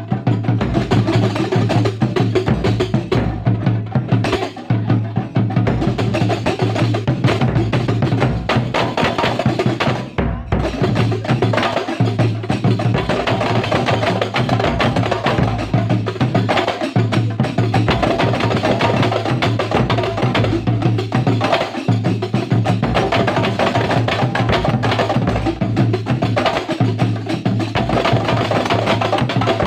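A Kuntulan ensemble playing: dense, fast, continuous hand percussion with a steady low tone beneath it.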